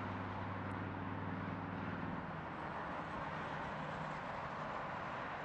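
Low engine hum of a passing vehicle, fading about two seconds in with a slight drop in pitch, over a steady background hiss.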